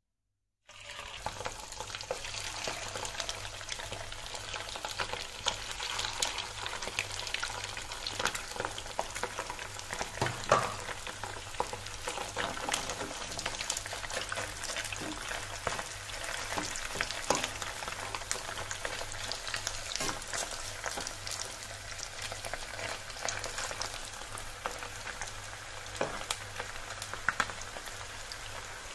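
Cornflour-and-egg-coated chicken strips deep-frying in hot oil in a kadhai: a dense crackling sizzle that starts suddenly about a second in and keeps up steadily, with one louder knock about ten seconds in.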